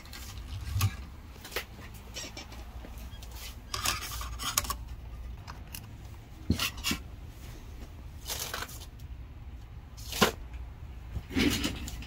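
Scattered light metallic clinks and clicks of the 2018 Mac mini's perforated metal bottom plate and small tools being handled during reassembly, a dozen or so separate knocks at irregular intervals.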